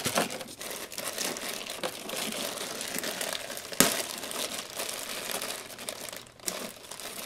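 Thin plastic bag crinkling and rustling as hands handle and pull at it, with one sharp crackle about four seconds in.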